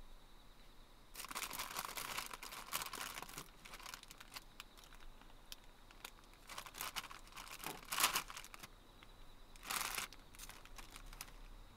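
Crinkling and rustling of something being handled, in bursts: a long stretch about a second in, a second cluster peaking near eight seconds, and a short one near ten seconds.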